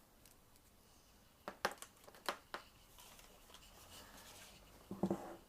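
Plastic packaging being handled: a few sharp clicks and crinkles about a second and a half in, a soft rustle, then another cluster of clicks near the end.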